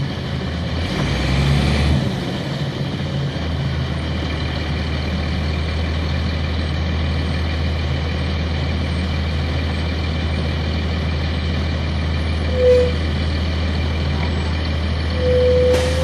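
A Nova Bus RTS's Cummins ISC inline-six diesel running steadily at idle, heard inside the bus near the rear-mounted engine, with a hiss of air about a second in. Near the end a short beep sounds, then a longer one.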